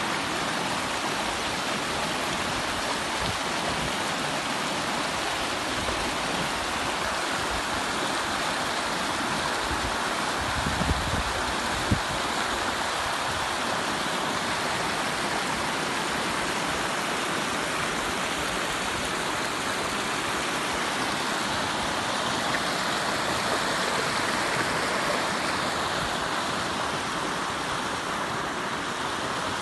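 Steady rush of flowing water, like a flooded stream, with a brief low bump about twelve seconds in.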